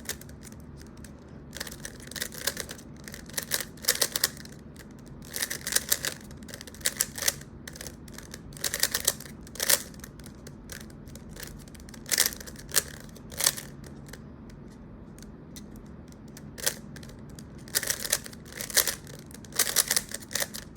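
Turning layers of a 3x3 Rubik's Cube by hand during a timed solve: bursts of quick plastic clicks, several turns in a row, with short pauses between bursts.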